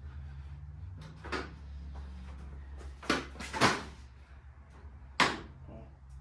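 Grille being pressed and seated into the front of a pickup truck: four sharp plastic clicks and clunks, the loudest a pair about three seconds in, over a steady low hum.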